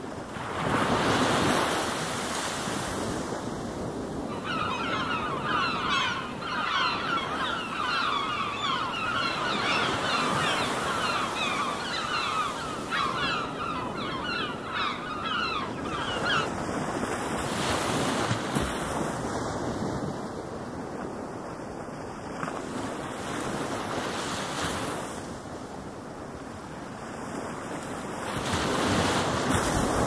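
Ocean surf: waves washing in and out as a steady rush that swells louder about a second in, again around the middle and near the end. From about four seconds in, for some twelve seconds, a flock of birds calls over it in quick, overlapping short calls.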